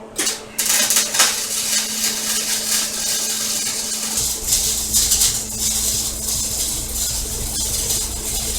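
Wire-feed (MIG) welder arcing on the steel camper frame, a steady loud crackle and sizzle over a constant electrical hum. A deeper low hum joins about four seconds in.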